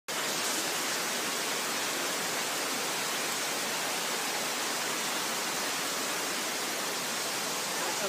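Waterfall rushing steadily, an even hiss of falling water with no break.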